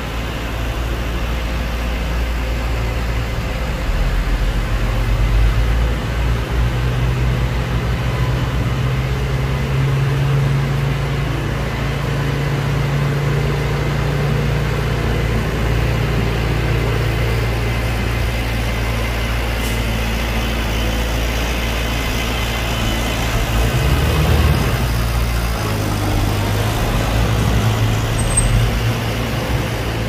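Heavy diesel earth-moving machinery running continuously, its low engine note rising and falling in pitch a few times.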